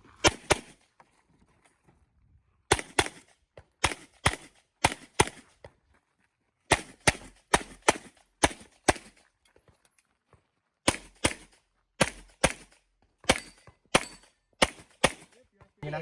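A competitor's handgun firing an IPSC stage: sharp shots, mostly in quick pairs about a third of a second apart, two on each target. The pairs come in runs separated by short pauses, with two longer breaks of about two seconds.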